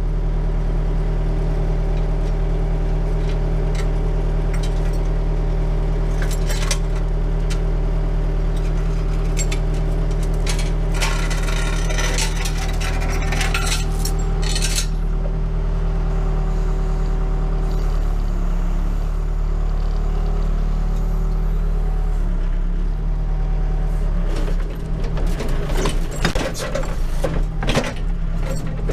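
Backhoe engine running steadily at idle, heard from its cab, with clinks and rattles of a metal chain being handled through the middle part and the engine note wavering near the end.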